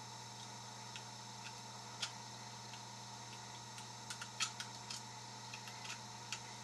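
Faint, scattered small metal clicks and taps of a jackknife blade being used as a pick in the keyway of a discus padlock with mushroom security pins, thickest about four to five seconds in.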